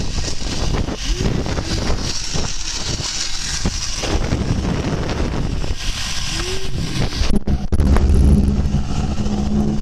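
Wind rushing and buffeting over the camera microphone, typical of a fast zipline ride. A steady low hum joins it about seven and a half seconds in.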